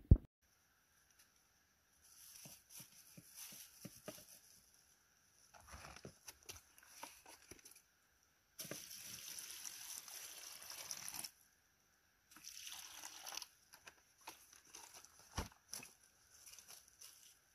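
Water poured from a plastic jug into a plastic-bag-lined bucket, running for about three seconds in the middle, with the plastic bag crinkling and rustling before and after. A sharp knock at the very start is the loudest sound, and another sharp click comes near the end.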